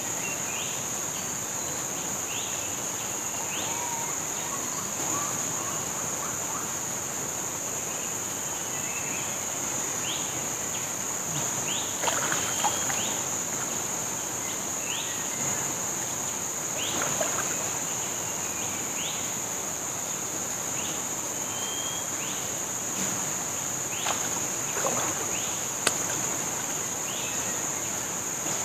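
Steady, high-pitched drone of tropical forest insects, with short rising chirps every second or two. Occasional water splashing and sloshing from handling a fishing net in a river, louder about 12, 17 and 25 seconds in.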